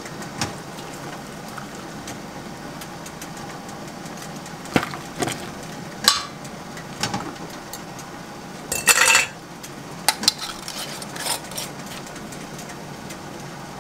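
A ladle clinking and scraping against a speckled enamel canning pot and a steel canning funnel while hot pickles and brine are ladled into glass canning jars. The clinks come irregularly, with a longer, louder scrape or pour about nine seconds in, over a steady low hum.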